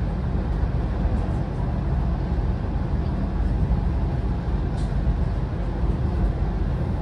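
Steady low rumble of a vehicle in motion, even throughout, with no distinct events.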